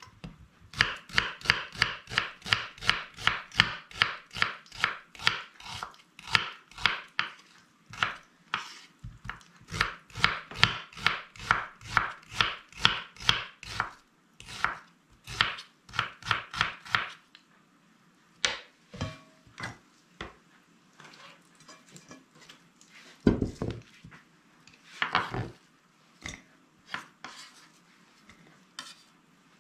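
Chef's knife slicing an onion into thin half-rings on a wooden cutting board: a long run of quick, even cuts, about three a second, each knocking the board, with short breaks. In the latter part come only scattered knocks and scrapes as the slices are gathered, with one heavier thump.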